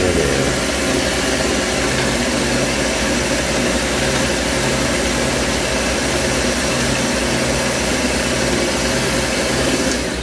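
Taurus 3 diamond ring saw running steadily with no glass against the blade: an even hum and hiss. It cuts off suddenly near the end.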